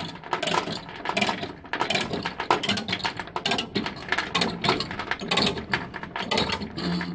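Ratchet load binder being cranked to tighten a transport chain, its pawl clicking in a rapid, continuous run of sharp clicks.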